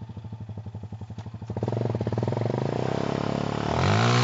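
ATV engine running with a steady popping pulse as it approaches. It grows louder about a second and a half in and revs up near the end.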